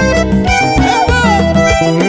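Instrumental break of a band song with no singing: a melody played over acoustic guitar and a steady bass line.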